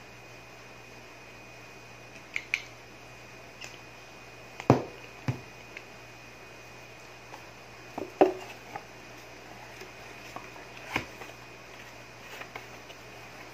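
Scattered clicks and knocks of a plastic bottle and its screw cap being handled, with the two loudest knocks about five and eight seconds in, over a steady faint hum.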